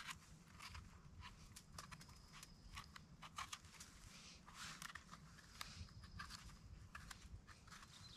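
Faint, irregular scraping and clicking of a small knife trimming and cleaning the stem and cap of a spring king bolete (porcini).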